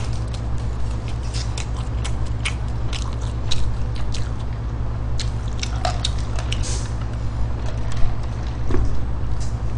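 Close-miked chewing of a McDonald's bulgogi burger: wet mouth smacks and short clicks at an irregular pace, over a steady low hum.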